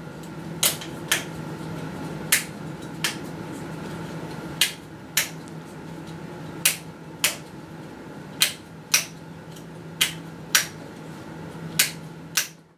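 Plastic cable drag chain on a benchtop dispensing robot being snapped shut one link at a time: a series of about fourteen sharp clicks, roughly one every half second to second and a half, over a steady low hum.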